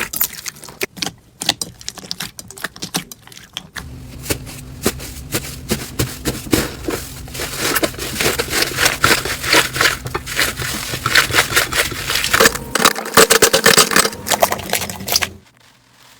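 Slime being squeezed and pressed by hand, giving a dense run of small crackles and pops that stops abruptly near the end.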